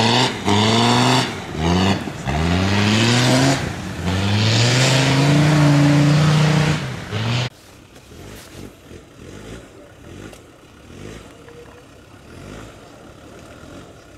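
Land Rover Discovery TD5's tuned five-cylinder turbodiesel revving hard in about four rising bursts, stuck and struggling in deep mud. About halfway through it cuts off suddenly, and another Land Rover Discovery's engine is heard much quieter, working unevenly as it crawls through mud.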